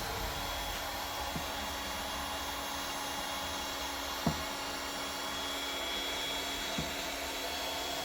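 Handheld hot-air blower running steadily, with a faint high whine in its sound. Three soft knocks come about a second in, near the middle and near the end.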